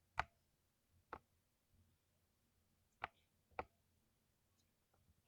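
Single keystrokes on a keyboard: four separate sharp clicks spaced unevenly, a second or so apart, with two much fainter taps near the end.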